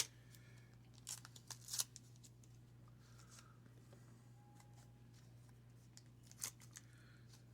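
A few brief crinkles and rustles from handling a wax-paper card pack and baseball cards, clustered about a second in and once more near the end, over a low steady hum.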